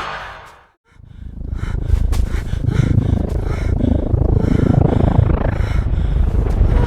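Sci-fi alien spaceship sound effect: a deep rumble with a rhythmic pulsing hiss above it. It fades in about a second in, after a brief silence, and holds steady.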